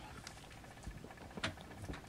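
Faint, sparse wet clicks and smacks of a Snowshoe Siamese mother cat's mouth as she licks and chews over her newborn kitten and the afterbirth, with a sharper click about a second and a half in.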